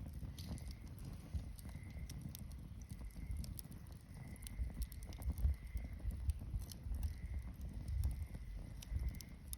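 Wood campfire crackling: irregular sharp pops and snaps over a low, uneven rumble.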